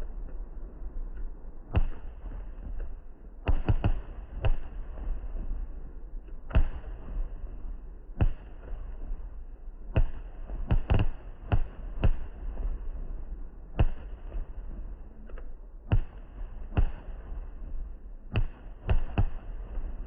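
Fireworks display: about twenty irregular bangs of bursting shells, some in quick clusters, each with a short echoing tail, over a steady low rumble.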